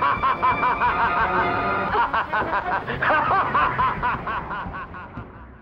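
Animated villain laughing, a rapid string of short cackling syllables over film score music, fading away near the end as he flies off.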